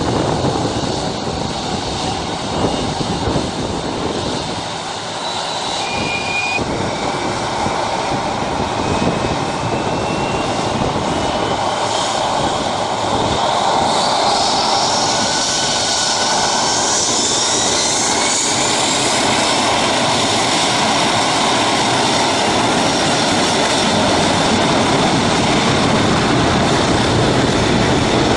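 Four jet engines of an Airbus A340 running with a broad rumble, then spooling up from about halfway through, several whining tones rising in pitch as the engines go to takeoff thrust and the airliner starts its takeoff roll.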